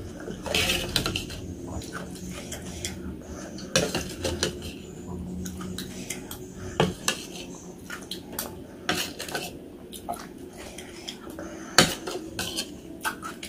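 Cutlery clinking and scraping against a bowl of noodles and meatballs, in irregular sharp clicks with one especially sharp clink near the end.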